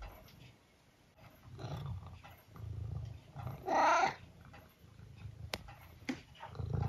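Long-haired tabby cat meowing for food: one loud, drawn-out meow about four seconds in, with quieter low rumbling sounds around it.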